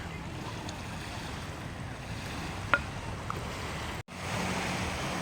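Steady wash of the sea and wind on the microphone, with one sharp click a little before the middle. About four seconds in the sound cuts out for an instant and returns a little louder.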